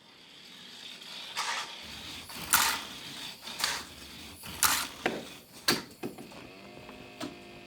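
Hot Wheels Sizzlers car's small battery-powered electric motor whirring as the car laps the plastic oval track, along with the rattle of its wheels on the track. The sound surges about once a second, each time the car passes close. A steady low hum joins in near the end.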